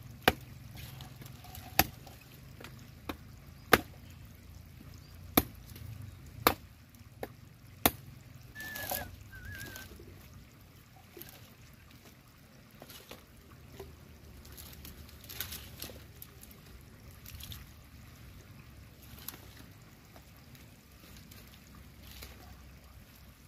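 A machete chopping dry wood into kindling, about eight sharp strikes in the first eight seconds, then softer knocks and rustling as the dry sticks are laid in a pile for a fire. A steady trickle of water runs underneath.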